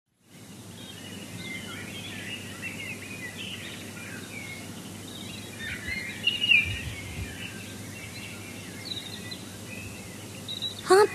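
Outdoor ambience of birds chirping over a steady background hiss, fading in just after the start. Music comes in right at the end.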